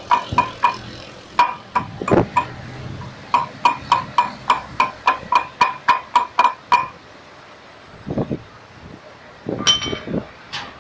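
Hammer driving a new wheel-bearing race into the brake drum: sharp, ringing metal-on-metal strikes in runs, the longest a fast series of about four or five blows a second, then a few duller knocks and a couple of high pings near the end.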